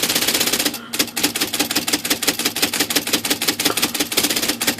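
IBM Selectric II typewriter repeatedly cycling its spacebar, a fast, even run of mechanical clicks with a short break just under a second in. The machine is being run to catch a fault where the carriage return, index or backspace trips by itself.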